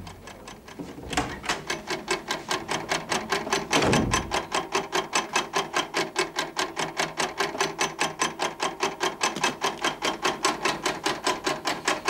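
Electric-motor-driven machine running with a rapid, even clatter of about four to five strokes a second over a steady hum, starting about a second in, with a heavier thump about four seconds in.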